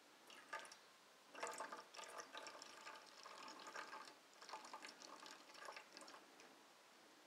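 Soy sauce trickling faintly from a bottle's pour spout into a stainless steel bowl, an uneven trickle that starts about a second in and thins out near the end.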